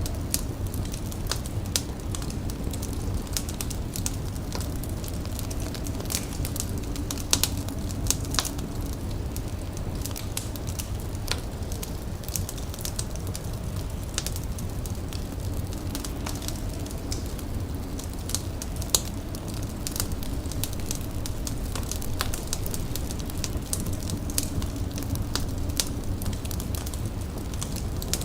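Indoor fire crackling, with frequent irregular sharp pops and snaps over a steady low rumble.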